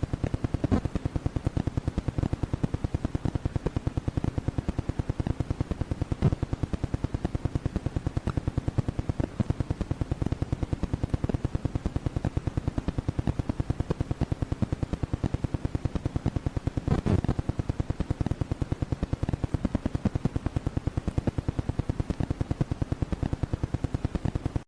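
Rapid, even mechanical clicking, several clicks a second, keeping a steady rhythm throughout, with a few louder clicks along the way.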